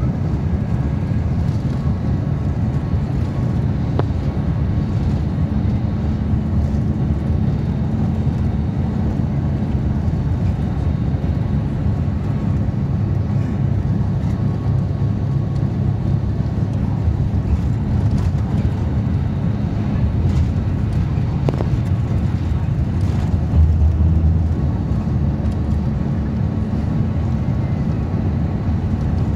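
Intercity coach bus cruising on an expressway, heard inside the passenger cabin: a steady low drone of engine and road rumble. About three-quarters of the way through, the rumble briefly swells louder.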